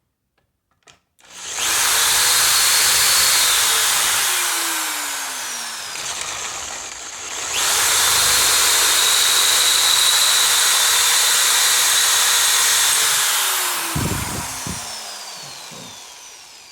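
Chuck-key electric drill boring a hole with a 29/64-inch bit: it runs loud for a few seconds, eases off, then runs hard again before winding down with a falling whine near the end, with a couple of knocks as it slows.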